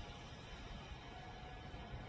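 Faint steady background noise, a low rumble under a hiss, with a faint thin hum held throughout.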